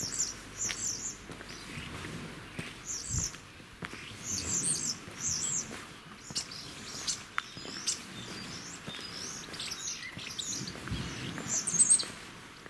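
Small songbirds chirping and twittering in short high bursts, repeated every second or two.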